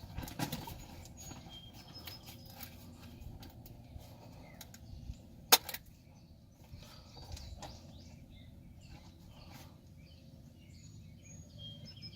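Birds chirping faintly over low outdoor background noise, with small handling clicks and one sharp click about five and a half seconds in.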